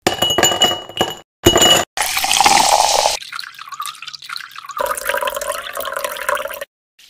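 Ice cubes clinking and ringing against a tall glass in two short edited pieces, then liquid poured over the ice, splashing and filling the glass, cut off abruptly near the end.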